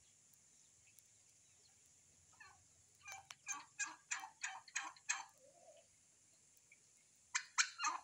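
Turkey hen calling: a run of about eight quick, evenly spaced calls, roughly four a second, starting about three seconds in, then three more just before the end.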